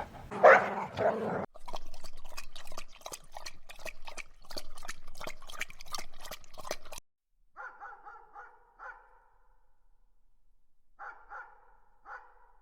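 A dog barking and yipping: a loud bark at the start, a run of rapid noisy sounds, then two quick runs of short, high yips near the end.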